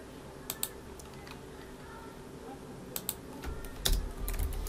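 Typing on a computer keyboard: scattered key clicks, coming faster near the end, with low thuds underneath in the last second or so.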